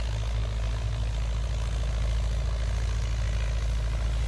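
Old Belarus (MTZ) tractor's diesel engine running steadily under load as it tills the soil, a low, even drone.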